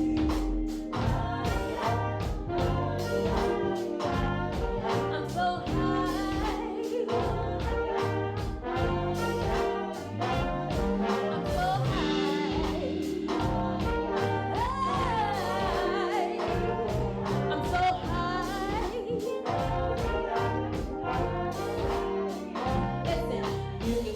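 Live band playing an instrumental passage of an R&B song, with a steady drum beat, a bass line and brass-like lead lines.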